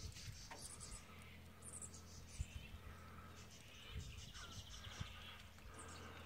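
Faint high-pitched chirps and rapid trills from small animals, over a low steady hum, with a few soft knocks.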